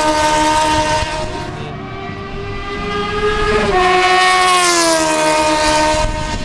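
High-revving motorcycle engines passing at speed on a racetrack straight. One is already going by at the start, its note falling away and fading. A second rushes past about four seconds in, its engine note sweeping down as it goes by.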